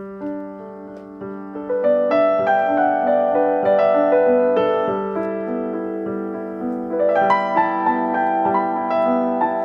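Piano music: a slow melody over a low note that is held throughout.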